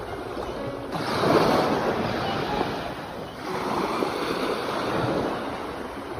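Ocean waves washing onto the shore, the surf swelling twice: once about a second in and again about three and a half seconds in.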